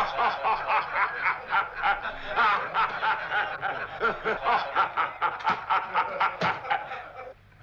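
Men laughing hard in quick, rhythmic ha-ha pulses that break off abruptly near the end.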